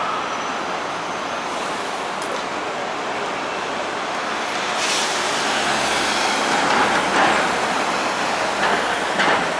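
City street traffic noise with vehicles going by. The noise grows louder in the second half as a van passes close.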